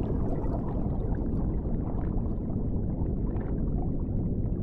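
Water gurgling and sloshing against a kayak's hull, a steady low rumble with a few faint ticks.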